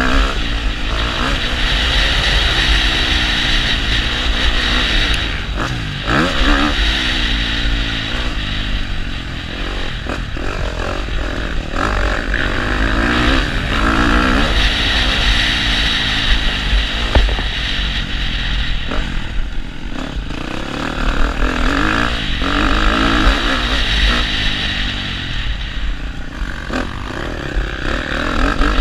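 KTM motocross bike's engine being ridden hard, its pitch rising and falling again and again as the throttle opens and closes, with wind buffeting the microphone.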